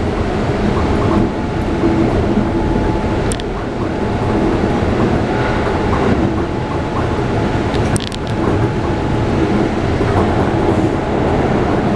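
Keikyu 600 series electric train heard from inside the passenger car while running, with a steady whine from its Mitsubishi GTO-VVVF inverter and traction motors over the rolling noise of the wheels. A couple of sharp clicks come from below, about three and eight seconds in.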